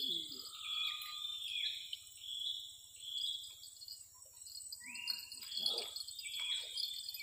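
Wild birds chirping and whistling in short notes that slide in pitch, with insects calling behind them.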